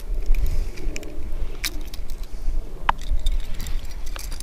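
Small metallic clicks and clinks of fishing pliers and a hard lure's hooks as a hook is worked free from a small snook's mouth, over a low rumble.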